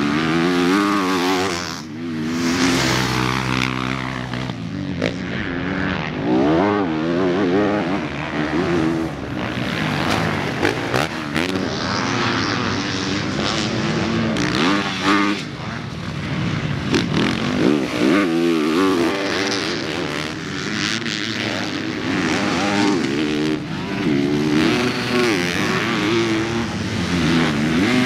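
Several motocross bikes' engines revving hard and backing off over and over, their overlapping pitches rising and falling with throttle and gear changes.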